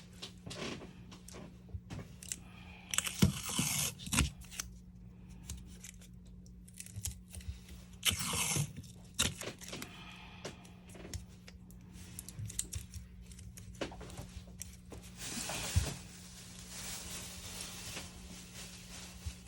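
Adhesive tape and a phone being handled on a repair bench: small taps, clicks and scrapes, with three bursts of tearing as tape is pulled, over a steady low hum.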